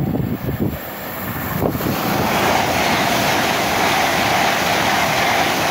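Express train passing through the station at speed: a rush of wheel and air noise that swells about two seconds in and stays loud, with a steady mid-pitched tone running through it.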